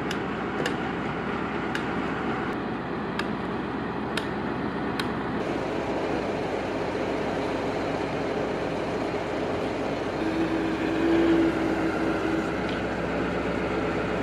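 A truck-mounted crane's engine running steadily as it hoists a wooden floor panel, with a steady whine for a couple of seconds past the middle. About seven sharp knocks fall in the first third.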